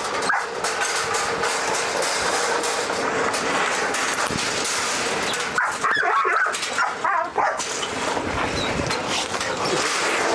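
Dogs barking inside a metal cage, a dense, near-continuous din for about the first five seconds that breaks into shorter, separate calls after that.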